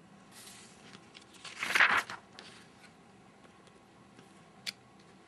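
A short rustle of a paper book page being handled, about two seconds in, with fainter rustling before it and one sharp click near the end.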